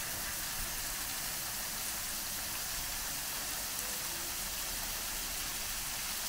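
Garden hose trigger spray nozzle spraying water onto a pot of loose potting mix: a steady hiss of spray with water pattering on the soil.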